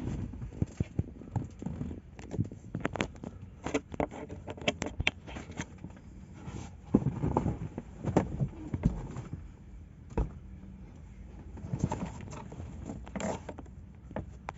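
Irregular clicks, taps and knocks of hands working plastic parts at a car's fuse box, handling noise in between.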